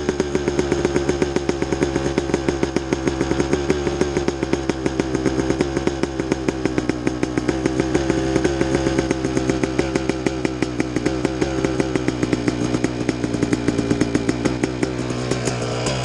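2003 Kawasaki KX250's single-cylinder two-stroke engine idling steadily through an FMF Gnarly expansion-chamber exhaust, with a fast, even pulsing of exhaust beats while it warms up after a cold start.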